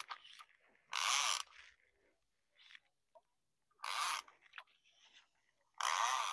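Fly line being pulled by hand: four short zipping swishes, about two seconds apart.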